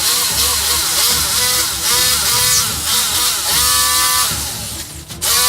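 Handheld power tool motor whining, spun up again and again: each run rises quickly in pitch and then holds steady. The sound briefly drops away near the end.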